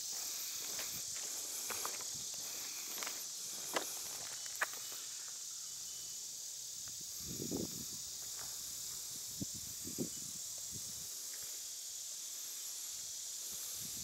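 A steady, high-pitched chorus of late-summer insects, with a few soft footsteps and sharp clicks.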